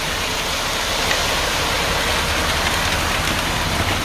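Wet ready-mix concrete sliding down a metal delivery chute, a steady rushing hiss over the low, steady running of the mixer truck.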